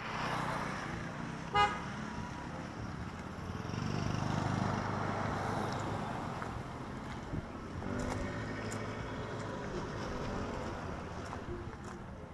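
Motor vehicles passing close by on a road, with one short horn toot about a second and a half in and another vehicle going past about eight seconds in.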